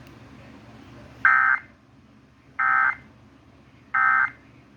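Emergency Alert System end-of-message signal: three short bursts of shrill digital data tones (the 'NNNN' code), about a second and a half apart, marking the end of the severe thunderstorm warning.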